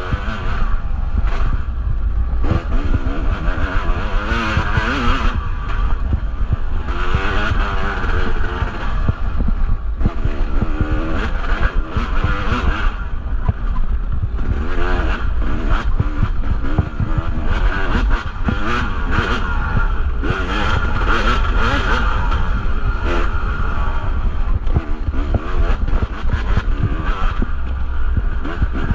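Yamaha two-stroke dirt bike engine ridden hard on a trail, its revs rising and falling over and over as the throttle is worked. Short knocks and rattles from the bike over rough ground, over a heavy low rumble.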